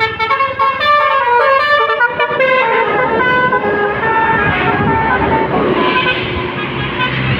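Tour bus 'telolet' basuri horn, a multi-tone air horn, playing a quick stepping melody of short notes. About three seconds in, engine and road noise rise under the horn as the bus passes.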